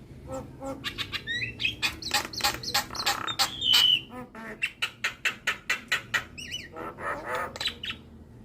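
Javan myna (jalak kebo) in full song: a fast, varied run of clicks, chattering notes and short rising whistles, with a louder held whistle about three and a half seconds in.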